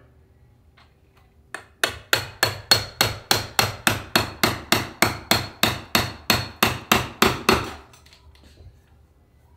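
Hammer tapping rapidly on the handle of a saddler's awl set in the seat leather, about four light, even strikes a second. It starts about a second and a half in and stops a little before the end. The awl is being tapped in as the seat leather is pulled tight.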